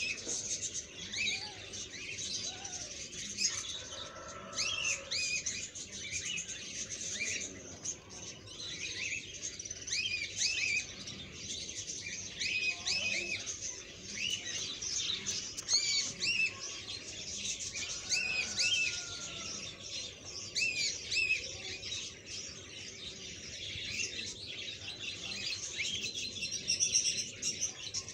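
Small birds chirping steadily: many short, quick, arching chirps overlapping one another.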